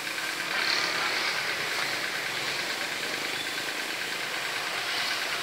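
Steady street traffic noise, swelling a little about a second in.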